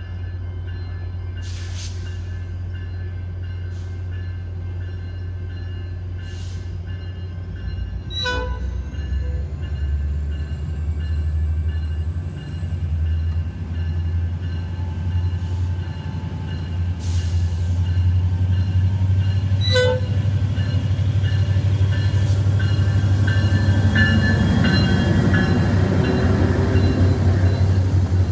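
Tri-Rail diesel commuter train pulling into the station: a steady low diesel engine drone that grows louder as it approaches, then the bilevel coaches rolling past close by near the end. Two brief metallic pings, about eight and twenty seconds in.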